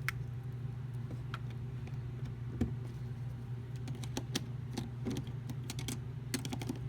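Irregular small clicks and taps of plastic parts being handled and fitted back together as a PS4 controller is reassembled, with a quick cluster of clicks near the end, over a steady low hum.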